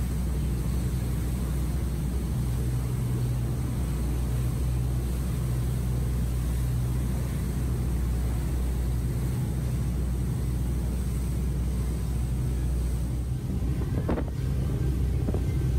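A ferry's engines drone steadily underway, over the rush of churning wake water and wind. About 14 s in the drone drops away and wind buffets the microphone.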